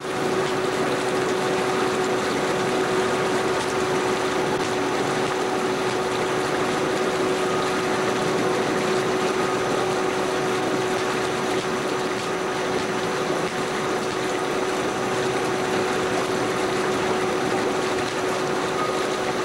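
Hot tub jets running: a steady rush of churning, bubbling water, with a steady hum underneath.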